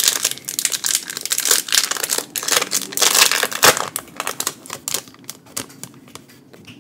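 Foil wrapper of a Pokémon TCG XY BREAKpoint booster pack crinkling in the hands, a dense run of crackles that thins out about five seconds in.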